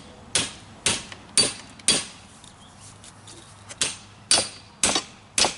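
Hammer blows, about two a second, in two runs of four with a pause between, struck while breaking the bead of a tubeless lawn tractor tire loose from its rim.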